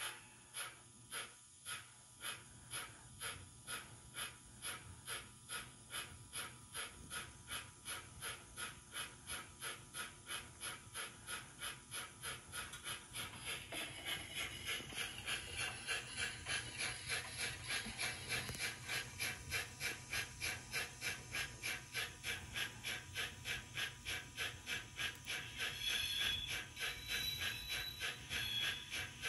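Model Adams 415 radial tank locomotive's DCC sound decoder playing steam exhaust chuffs through the model's onboard speaker: a steady beat of about three chuffs a second that gets louder about halfway through.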